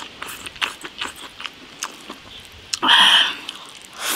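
Close-up chewing and mouth sounds of someone eating shredded pork, vegetables and rice from a bowl: many small wet clicks, and a louder slurping burst about three seconds in.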